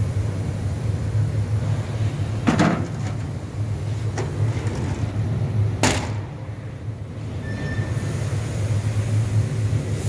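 Bystronic Bysprint laser cutting machine, retrofitted with a 6 kW fiber laser source, running with a steady low hum. Two louder knocks come about two and a half and six seconds in, with a fainter one between them.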